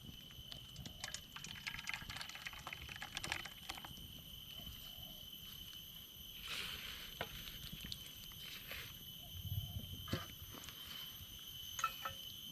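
Faint scattered clicks and light knocks of kitchen utensils and containers being handled, over a steady high-pitched hum.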